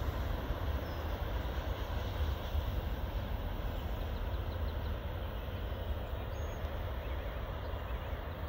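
Rumble of the rear cars of a long mixed freight train rolling away on the rails, a steady low rumble that slowly fades.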